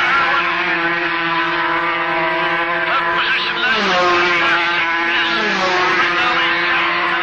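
Racing motorcycle engines running hard at high revs as the bikes approach along the road, a steady engine note that drops in pitch twice.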